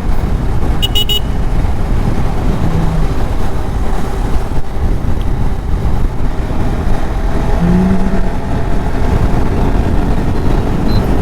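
KTM RC 390's single-cylinder engine running steadily while the motorcycle is ridden, heavy wind noise on the microphone. The engine is freshly installed and still in its break-in, ridden gently. A short high-pitched beep comes about a second in, and a brief low tone near eight seconds.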